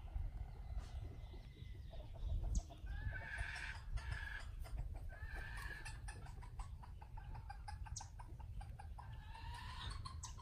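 Domestic chickens clucking, with short hen calls about three, four and five and a half seconds in and a longer rising call near the end, over a run of fast faint clicks.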